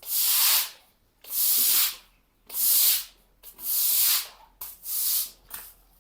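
Broom sweeping wash water across a chicken-house floor: five long swishes, about one every 1.2 seconds, with short scrapes between the later strokes.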